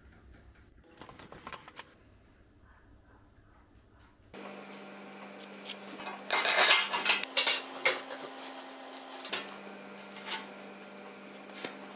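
Metal pieces clanking and clattering against each other, loudest in a burst about halfway through, over a steady hum that starts suddenly about four seconds in and briefly rises in pitch.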